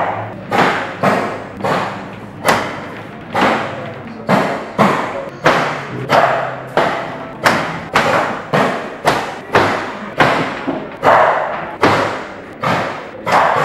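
Two robotic paintball guns firing in bursts of single shots, the paintballs smacking into walls, glass and canvases, about two hits a second at an uneven pace, each dying away quickly.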